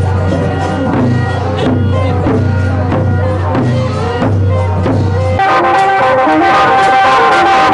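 Festival procession music: a deep drum beat about every half second with other instruments, changing suddenly about five seconds in to sustained, brass-like held tones.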